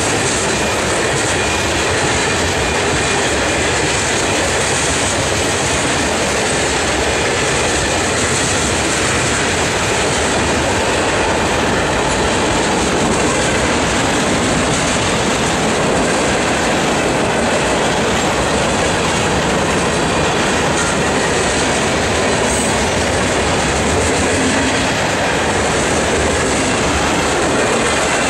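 Freight train cars rolling past close by: a steady, loud rumble and clatter of steel wheels on the rails.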